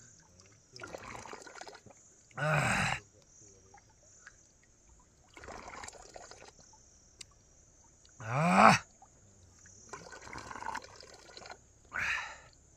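Cold water splashing and trickling three times, each splash followed by a short gasping voice reacting to the cold.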